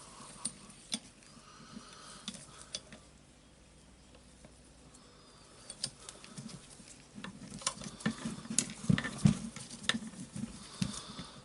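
Light clicks, taps and scraping of small metal tools and parts worked against an orbital sander's armature while trying to pull off its ball bearing. The sounds are sparse early on, pause for a couple of seconds, then come thicker in the second half.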